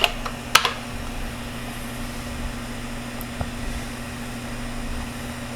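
Steady low hum with a background hiss from running equipment, with a single sharp click about half a second in.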